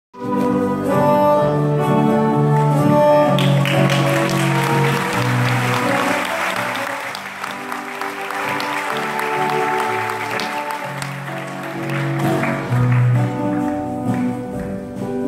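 Live acoustic band playing held notes and chords, with violin, accordion, acoustic guitar, double bass and drums on stage. The audience applauds over the music from a few seconds in until past the middle, then the band plays on alone.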